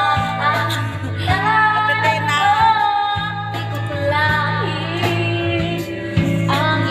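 A woman singing a song with guitar and steady bass accompaniment.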